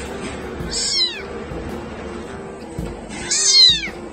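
Very young kitten meowing twice, high-pitched cries that fall in pitch; the second is louder and longer.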